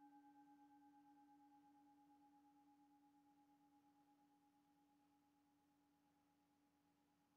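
The last of a struck singing bowl's ring, very faint and slowly fading, its tone wavering gently in loudness.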